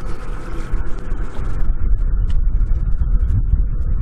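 Wind buffeting the microphone: a loud, uneven low rumble with a rushing hiss above it.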